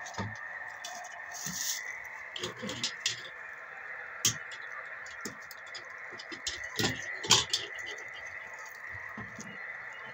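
Steady hiss of static from a ham radio receiver's speaker, with scattered clicks and a few sharp knocks, the loudest about seven seconds in.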